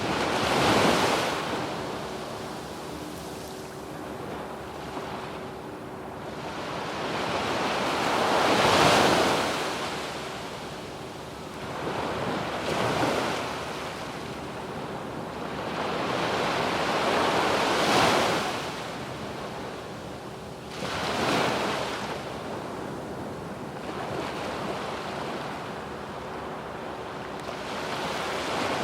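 Sea waves breaking and washing up a sandy beach: five louder surges of surf, a few seconds apart, over a constant background wash.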